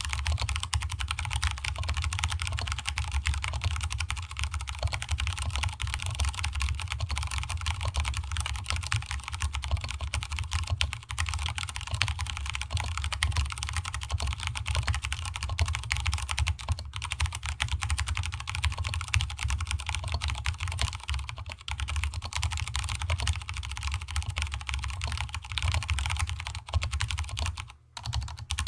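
Stock Vortex Cypher mechanical keyboard with Cherry MX Brown switches and DSA keycaps being typed on quickly and continuously, a dense stream of key clacks with a low hollow resonance from the desk beneath, broken by a short pause near the end.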